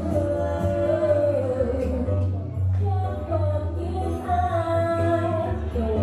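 Roots reggae record played loud on a sound system: a heavy, pulsing bassline under a sung vocal melody.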